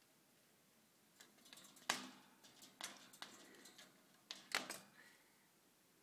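A budgerigar knocking and pecking at a toy in its cage: a faint, irregular run of sharp clicks and knocks, the loudest about two seconds in and a close pair near the end.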